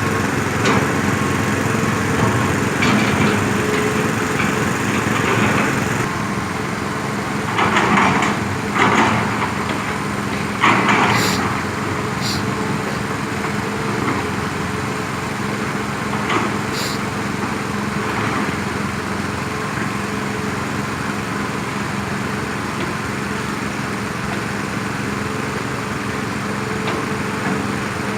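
Heavy diesel machinery engine running steadily. It has a few brief louder surges about eight to eleven seconds in, and a handful of sharp knocks, the clearest around eleven and seventeen seconds.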